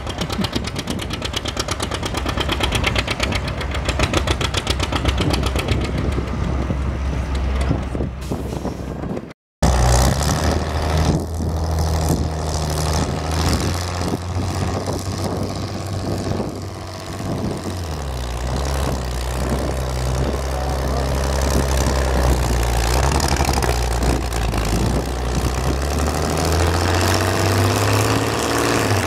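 Farm-stock tractor engines at a tractor pull. First a John Deere runs hard with a fast, even pulsing beat while pulling the weight-transfer sled. After a brief cut in the sound, a red International tractor hooked to the sled runs with a steady engine note that changes pitch partway through and rises near the end as it is throttled up.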